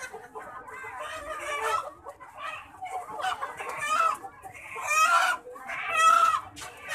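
Chickens clucking and squawking in a run of calls, the loudest about five and six seconds in.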